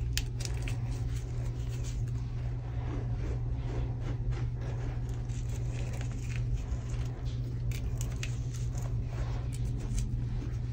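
Hands raking and squeezing a heap of crushed gym chalk, the crumbles crunching and crackling in many small, sharp crackles, over a steady low hum.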